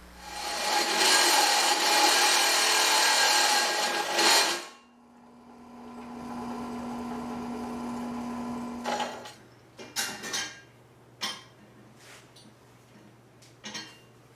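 A power tool runs loudly for about four and a half seconds, then stops. A quieter steady hum follows for about four seconds, and then come several separate knocks and clanks.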